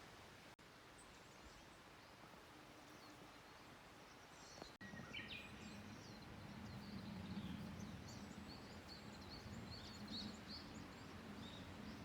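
Small birds twittering faintly, short high chirps coming thick and fast over a low steady outdoor hum. The chirping starts up after a brief dropout about halfway.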